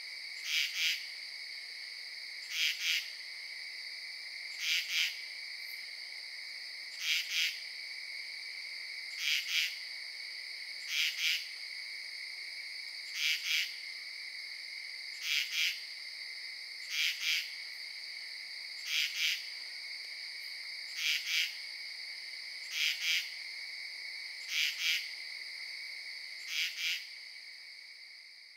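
Night-time insect chorus: a steady high-pitched trill with a loud double chirp repeating about every two seconds, fading out near the end.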